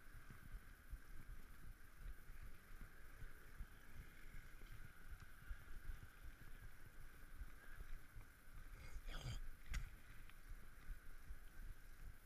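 Low, muffled rumble of a bicycle rolling over paving stones, with wind on the microphone and a faint steady high hum over it. A couple of short sharp rattles about nine seconds in.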